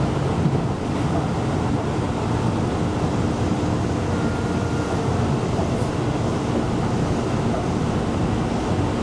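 Electric commuter train running at steady speed, heard from inside the front cab: an even low rumble of wheels on rail and running gear.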